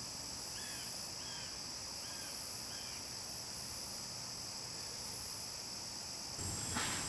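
Crickets chirping in a steady chorus, with a bird giving four short chirps about a second in.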